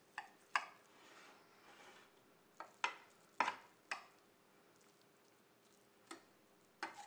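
Kitchen knife cutting through raw seitan dough in a glass baking dish, the blade striking the glass bottom in a series of short, sharp, irregular clicks.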